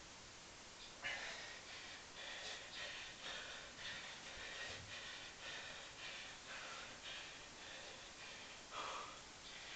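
A man panting hard in quick, short breaths, about two or three a second, with a deeper gasp near the end: winded from a long set of one-leg (pistol) squats.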